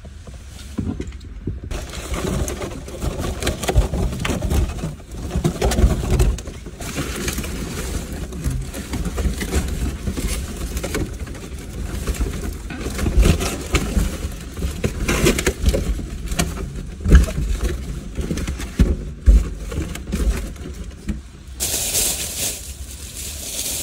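Foil heart balloons crinkling, rustling and squeaking as they are squashed and rubbed against each other and the car's interior, in irregular bursts. A short hiss takes over near the end.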